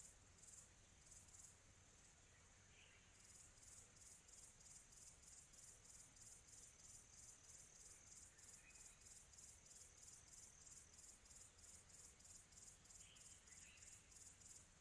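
Crickets chirping in a fast, even, high-pitched pulse in a quiet tropical afternoon ambience, with a few faint short calls in the background.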